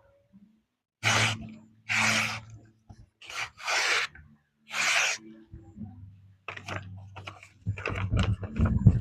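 Rasping strokes of a chopper knife blade working through material, about five of them, each roughly half a second long, then a quicker run of short clicks and knocks near the end, with a faint low hum underneath.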